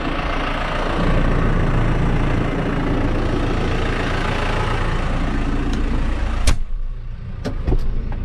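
New Holland tractor diesel engine idling steadily, a little louder from about a second in. About six and a half seconds in there is a sharp knock, after which the engine sounds duller, with a few lighter clicks just after.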